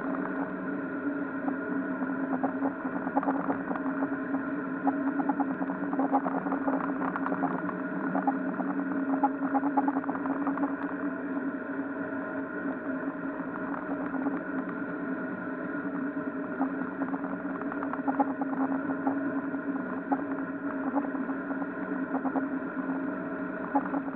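Sterndrive boat's MerCruiser 140 hp 3.0-litre four-cylinder engine running steadily at cruising speed, with no change in revs, as the boat planes through the water.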